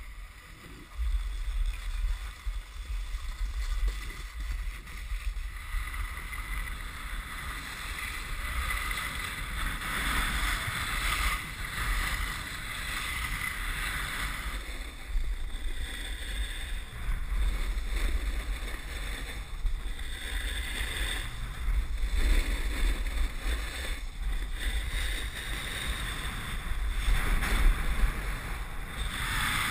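Wind rushing over the microphone during a fast downhill ski run, a steady low buffeting that starts about a second in, with the hiss and scrape of skis sliding over hard, icy snow swelling and fading through the turns.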